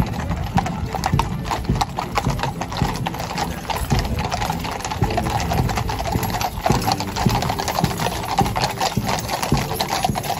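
Hooves of many horses clip-clopping on a paved road as a column of cavalry horses walks past, the clicks dense and overlapping.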